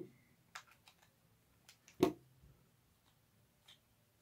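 Faint small clicks of hands handling an Abu 6500 baitcasting reel, with one sharp knock about two seconds in as a screwdriver is set down on the table.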